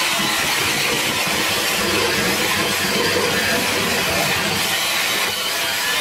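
Sunbeam Mixmaster five-speed electric hand mixer running steadily, its motor whirring and its beaters churning thick chocolate batter in a plastic bowl.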